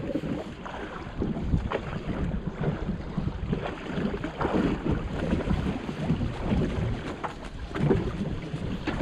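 Wind buffeting the microphone over choppy sea, with irregular slaps and splashes of water against the boat's hull.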